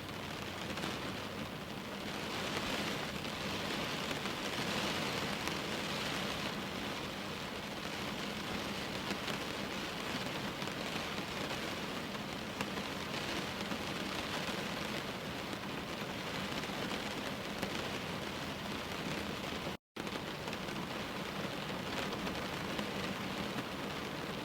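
Steady rain falling, swelling slightly a few seconds in. The sound cuts out for a split second near the end.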